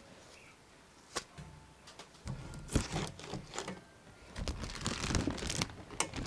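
Packaging being handled during an unboxing: irregular rustling and crinkling with a few sharp knocks, the loudest about three seconds in.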